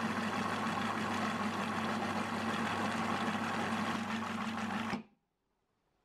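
Food processor motor running steadily, its blade churning hazelnuts that have already turned into a creamy nut butter, then switched off about five seconds in, stopping abruptly.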